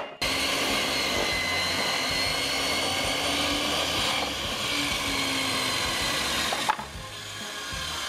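Electric mitre saw running and cutting through a timber plank: a steady motor whine and cutting noise that stops abruptly about six and a half seconds in.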